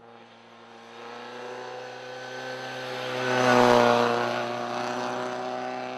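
Fiat 131 rally car's engine running at steady revs as the car approaches, passes close by about three and a half seconds in, and draws away.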